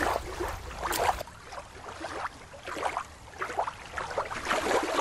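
Water lapping and splashing in shallow water by a rock. About a second in, the sound cuts to open sea water, with a series of short, irregular splashing noises.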